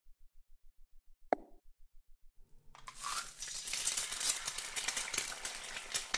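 Crackling, sizzling fire sound effect starting about three seconds in and carrying on, preceded about a second in by a single sharp click.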